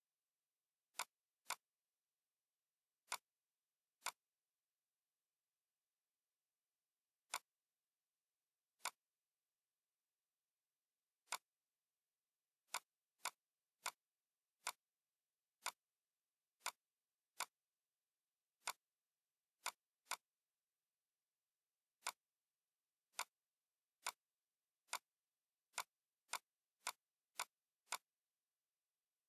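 Computer mouse clicking: about two dozen single sharp clicks at irregular gaps, closer together toward the end, with near silence between them.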